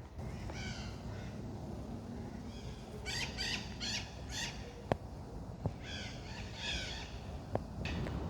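Birds giving harsh, repeated calls in three bouts, the middle one four quick calls in a row. A few single sharp clicks fall in between.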